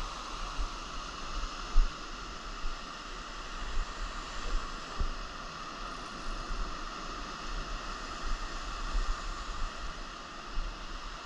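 Steady wash of ocean surf on a sandy beach, with wind buffeting the microphone in gusts.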